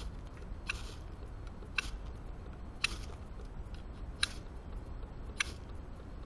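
Ferrocerium rod scraped with the spine of a Pathfinder School PLSK1 knife, throwing sparks: five short scrapes about a second apart.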